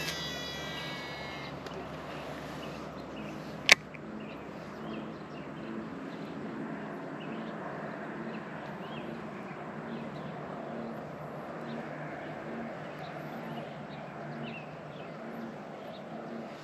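A baitcasting reel's spool whines briefly as a cast goes out, then there is one sharp click a few seconds in. After that comes a steady marsh ambience with faint bird calls and a soft, regular low pulsing while the lure is worked back.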